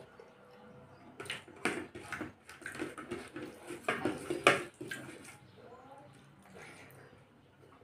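Fingers scraping and pressing food across a disposable paper plate: a run of short crackly scrapes and taps that builds for about four seconds, loudest just past the middle, then fades.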